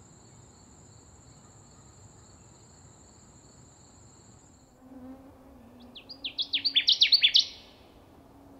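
A steady high insect trill for the first half, then a male Connecticut warbler's loud, chanting song: a quick run of repeated sweeping phrases that grows louder toward its end, starting about six seconds in.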